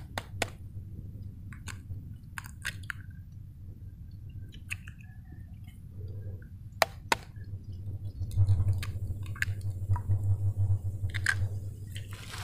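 Scattered sharp taps and clicks of utensils and eggs against a bowl, growing into busier, squishy mixing noise from about eight seconds in, as raw eggs are being beaten for frying.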